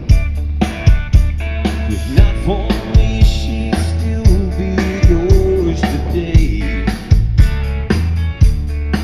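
Rock band playing live: a drum kit keeping a steady beat under bass and electric guitar, with a melody line gliding over the top.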